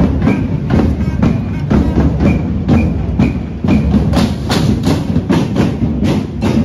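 Marching drummers beating drums with sticks in a steady rhythm, about two strokes a second, that gets faster and sharper about four seconds in, over the hubbub of a walking crowd.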